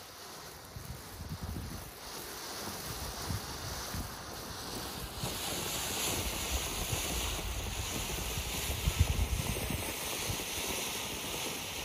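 Firework fountain burning on the ground: a steady rushing hiss of spraying sparks that grows stronger about five seconds in, with scattered crackles and pops, the loudest cluster near the nine-second mark.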